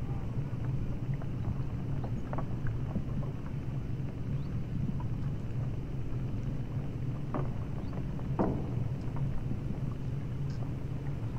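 Steady low drone of a large ship's engines under way. Two short, sharper sounds stand out about two-thirds of the way through.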